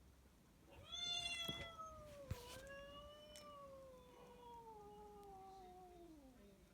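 A recorded cat's long, drawn-out meow played back, starting about a second in and sliding slowly lower in pitch until it fades near the end. A short click about two seconds in.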